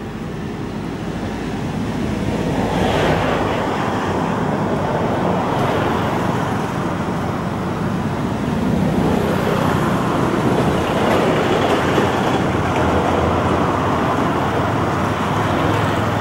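Road traffic going by close at hand: vehicle engines and tyre noise that swell over the first few seconds and stay loud.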